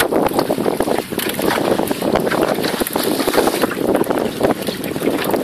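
Wind buffeting the microphone over water lapping against the hull of a small open boat drifting at sea, with no motor running.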